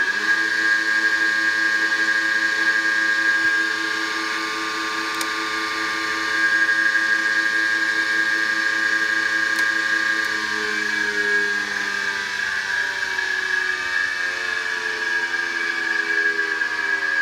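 Electric motor on a soft starter running at full speed with a steady whine, then switched off about ten seconds in and coasting down, its pitch falling. A steady high whine continues alongside.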